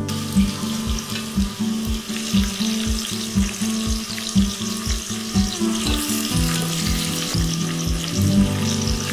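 Food frying in hot oil in a pan, a steady sizzle. Background music with a steady beat plays under it.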